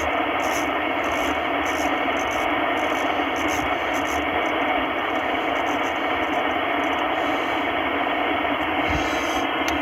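Steady, thin hiss of static from a ham radio transceiver's speaker: receiver noise with no voice on the frequency.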